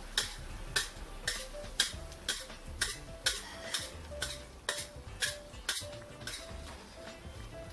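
A metal utensil clinking against a pan while stirring the gravy, about two sharp clinks a second that stop about six seconds in, with faint background music.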